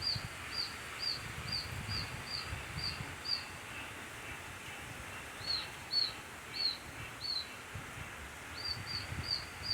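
Baby birds screaming: short, high peeps about three a second in runs, pausing for a couple of seconds in the middle. These are the distress calls of nestlings stranded in a rain gutter. A steady hiss of rain and wind lies behind them.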